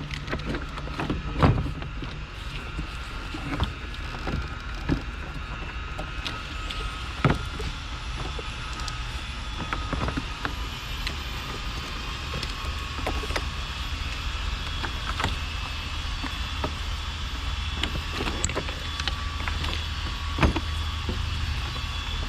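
Scattered sharp clicks and knocks of parts and tools being handled in the engine bay, over a steady low rumble.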